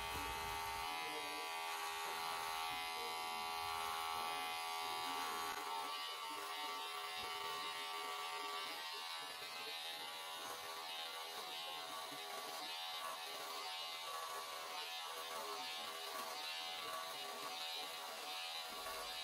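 Handheld electric carpet trimmer buzzing steadily as it shears the pile of a freshly tufted rug level.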